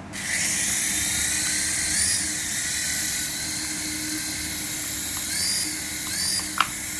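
High-pitched whine of a remote-control toy's small electric motors running steadily, the pitch dipping and rising slightly a few times, with a short sharp click near the end.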